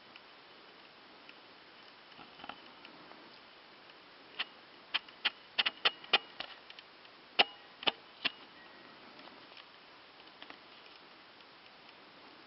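A run of about ten sharp clicks spread over about four seconds, some with a brief high ring to them, over faint steady hiss.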